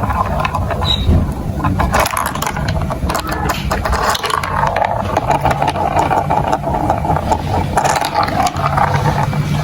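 Marbles rolling steadily along plastic marble-run tracks, with many quick clicks and rattles as they hit the block pieces.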